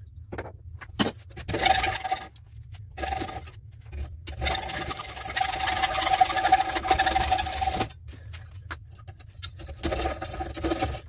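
Hacksaw cutting into a small electric motor's armature, copper windings on a steel core, clamped in a bench vise: rasping saw strokes in several spells, the longest lasting about three seconds in the middle, with a steady ringing tone through the cutting. A few sharp clicks come in the first second.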